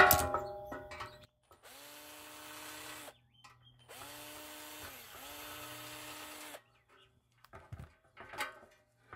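Cordless drill-driver driving out the screws of a terminal block: three short runs of the motor, about a second and a half each, each spinning up, holding and winding down. A sharp metal knock comes right at the start, and a few light clicks follow near the end.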